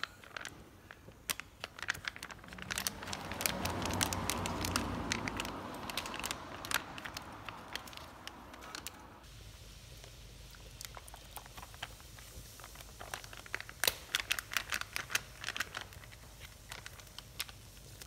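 Plastic retort pouch crinkling and crackling as it is squeezed and shaken out over a frying pan, in many quick irregular clicks. A louder rushing noise swells up about three seconds in and stops suddenly around nine seconds.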